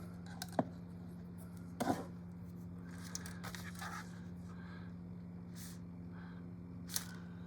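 A few light clicks and taps from small tools and objects handled on a workbench, with faint scraping and rustling, over a steady low hum.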